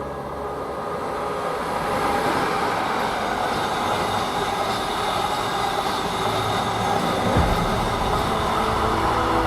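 Freight train hauled by an electric locomotive running along the track, a steady rolling noise of wheels on rails that builds over the first couple of seconds. A low steady hum joins about two-thirds of the way through.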